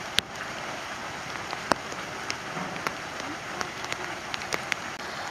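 Steady light rain falling: an even hiss, with irregular sharp taps of single drops landing close by.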